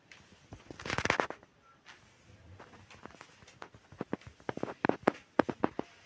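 Stainless-steel electric kettle being handled on its base: a quick rattle of clicks about a second in, then a run of sharp clicks and knocks of plastic and metal.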